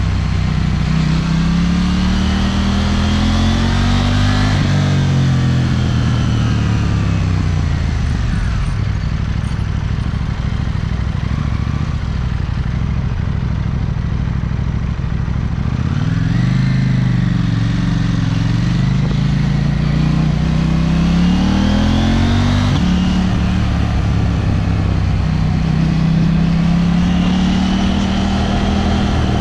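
KTM 790 Duke's parallel-twin engine under way, its pitch rising for a few seconds as it revs up, then dropping back and running low for about ten seconds. About halfway through it climbs again, drops briefly, and climbs once more near the end.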